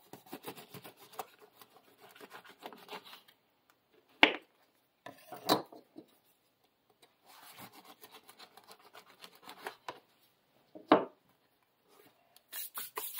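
A folding knife sawing through a crusty loaf on a wooden cutting board, the crust crackling and rasping in two cuts. Sharp knocks on the board come between the cuts, the loudest about four seconds in, and there is a short rattle near the end.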